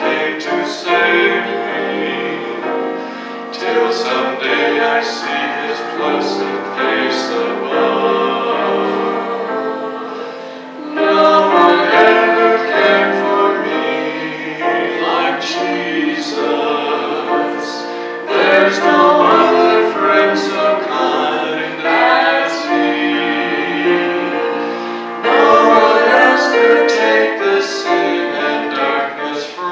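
A man singing a gospel hymn into a microphone, accompanied by a grand piano, in phrases that swell louder several times.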